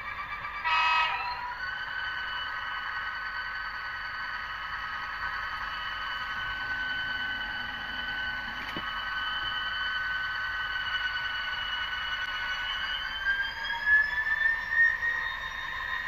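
Model locomotive motors whining steadily at several high pitches, the pitch gliding upward near the end as they speed up. A short buzz comes about a second in, and a single sharp click a little past halfway fits a Kato electric turnout being thrown.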